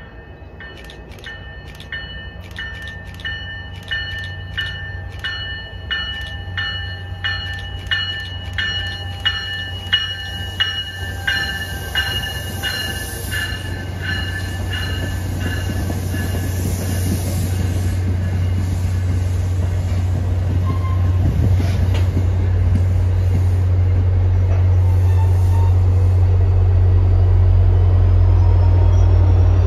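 MBTA push-pull commuter train approaching and passing. Its bell rings about twice a second for the first half. The bell then fades under the rumble of wheels on rail and the low drone of the diesel locomotive pushing at the rear, which grows steadily louder as it draws near.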